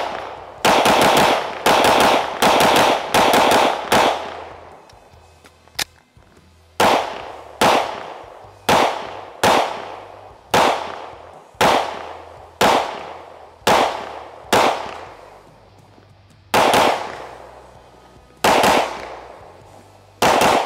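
Springfield Armory Echelon 9mm pistol fired in strings: about six quick shots in the first four seconds, then after a short pause single shots about once a second, slowing to about one every two seconds near the end. Each shot is sharp and leaves an echoing tail.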